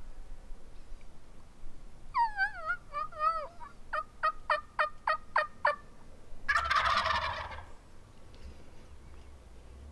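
A run of turkey yelps, then a quick series of short sharp clucks at about four a second, followed by a Rio Grande wild turkey gobbler gobbling once, the loudest sound.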